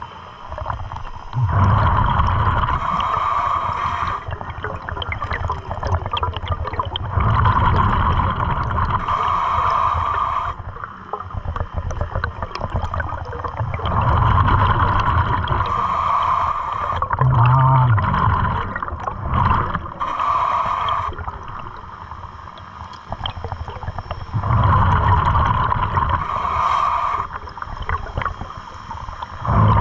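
Scuba diver breathing through a regulator underwater: exhaled bubbles gurgling past the mask in regular bursts, about one breath every five to six seconds.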